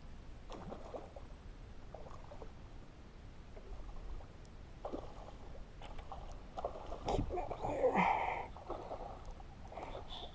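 Water lapping and splashing around a small boat, with a few knocks and rustles from handling the fly rod and line. The sound is loudest about seven to eight seconds in.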